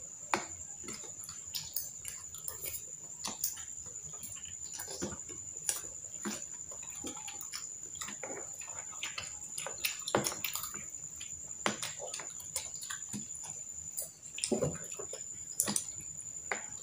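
Close-up eating sounds: irregular clicks of forks and skewers against a plastic tub, with chewing and mouth sounds from people eating fried fish balls and kikiam. A steady high-pitched whine runs underneath.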